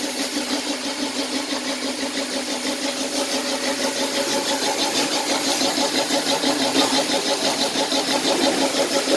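A 5 hp single-plunger car-wash pump, belt-driven by an electric motor, running steadily with a low hum and a rapid, even pulsing. It gets slightly louder about three seconds in.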